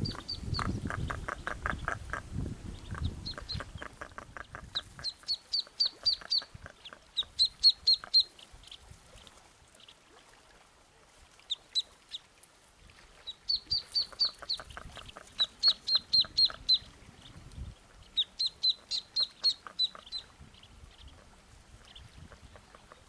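Common goldeneye ducklings peeping in quick runs of high notes, and a female goosander calling them with rapid low clucking calls, loudest in the first few seconds and again midway.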